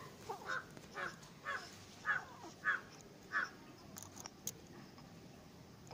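A crow cawing: six short calls in an even series over about three seconds, followed by a few faint clicks.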